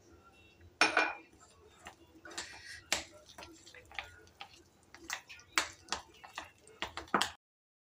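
Steel spoon stirring a thick biscuit-and-milk batter in a bowl, with irregular clinks and scrapes against the bowl. The sound cuts off suddenly near the end.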